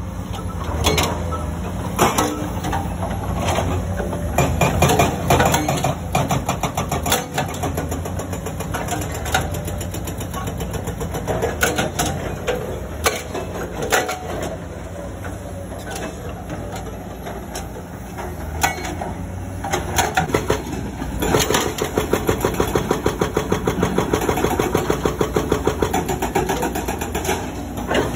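Komatsu excavator's diesel engine running under load while its hydraulic breaker hammers rock: irregular strikes at first, then from about twenty seconds in a rapid, steady hammering.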